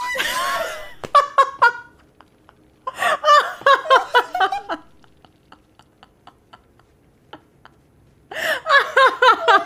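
A woman laughing hard in three bouts, near the start, a second or so in the middle, and again near the end, with faint breathy pulses in between.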